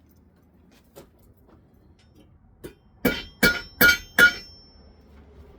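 Four quick hammer blows on a metal cable lug, crimping it onto the thick welder ground cable. Each strike is sharp and rings briefly; two faint taps come before them.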